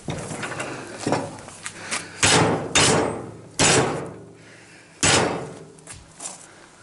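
Hammer blows on a 10 mm steel rod clamped in a bench vise, bending the rod into a hook. Four loud strikes, each ringing and dying away, spaced between half a second and a second and a half apart, with lighter knocks before and after.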